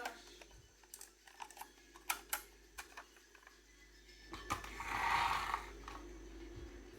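Marbles clicking and clacking along a wooden marble run: an irregular scatter of sharp clicks, with a louder rattling rush for a second or so about five seconds in.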